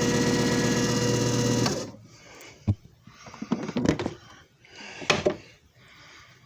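JFJ Easy Pro disc repair machine's motor running with a steady hum, then shutting off abruptly about two seconds in. Several sharp clicks and knocks follow.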